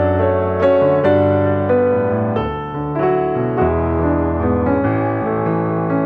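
Background music: gentle piano or electric piano playing sustained chords and a slow melody.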